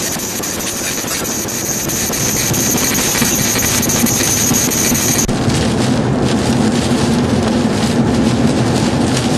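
Road and engine noise of a moving vehicle heard from inside the cabin: a steady rushing sound with a low drone under it. The sound changes abruptly about five seconds in.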